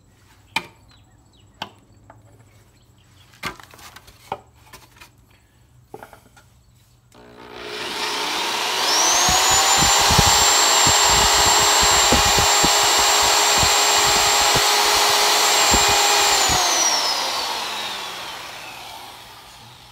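Electric power tool spinning up with a rising whine, running at a steady high pitch for about nine seconds with irregular knocks as it cuts into the work, then winding down with a falling whine. A few scattered clicks and knocks come before it.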